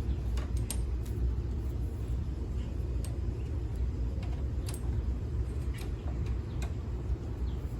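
Steady low outdoor rumble with a few faint, sharp clicks scattered through it, the light handling of small metal parts.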